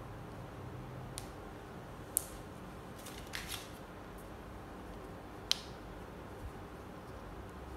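Handling of a waterproof paper wristwatch strap as it is wrapped around a wrist: a few scattered sharp clicks and a short crinkly paper rustle about three seconds in, over a low steady hiss.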